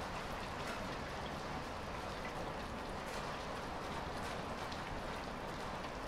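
Light rain falling steadily outside: an even pitter-patter of drops.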